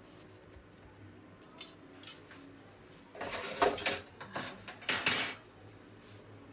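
Metal cutlery clinking and clattering: two sharp clinks about a second and a half and two seconds in, then a couple of seconds of rattling, scraping strokes as forks are put down and a knife is taken up against a cutting board.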